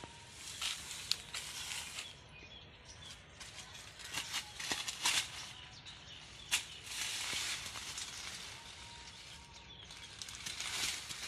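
Dry fallen leaves rustling and crackling in irregular bursts as a toddler crawls and sits in a leaf pile, scooping the leaves with his hands.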